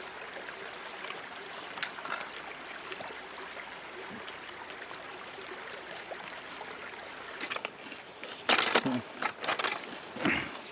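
Creek water running steadily, with a few loud knocks and clattering near the end.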